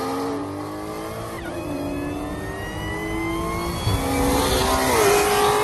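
Cars accelerating at full throttle in a street roll race. The engine pitch climbs and drops sharply at each upshift, about a second and a half in, around four seconds and again near five seconds, heard from inside one of the cars.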